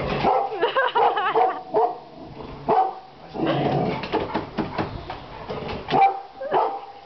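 A dog barking in several short bouts, with whining yips between them. The dog is wary of a plastic rhinoceros statue that it refuses to walk past.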